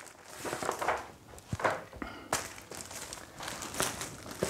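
Irregular soft rustling and scuffing of a person moving about at a whiteboard: several short noisy strokes with no steady tone.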